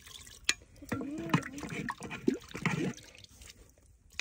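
Thick meat gravy ladled into a small aluminium pot: a liquid pour and drips, with a few sharp clicks of the ladle against the metal. A voice is heard from about a second in.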